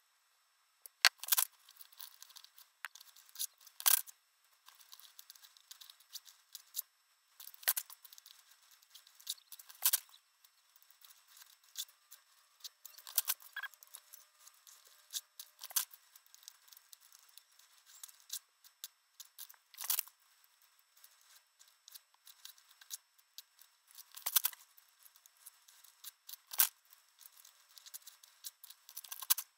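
Sheets of graph paper being ripped out of a spiral notebook and their edges torn off by hand. Repeated short, sharp paper rips come every second or two, with quieter rustling and handling of the paper between them.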